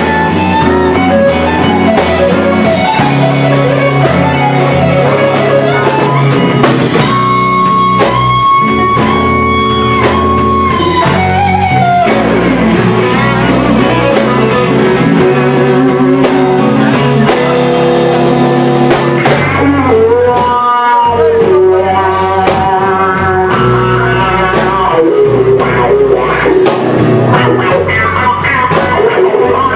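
Live electric blues band playing an instrumental slow blues: a lead electric guitar plays long held and bent notes over drums and rhythm accompaniment.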